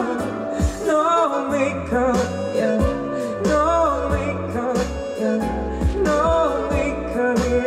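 A singer performing a pop song live, the voice gliding between held notes over an accompaniment with a steady bass line and a light beat.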